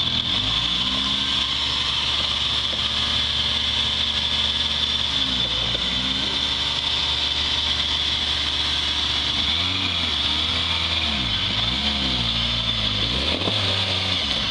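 Suzuki Samurai off-road 4x4's engine running at low revs as it crawls over steep ground, with the throttle blipped repeatedly so the revs rise and fall, several times in quick succession in the second half.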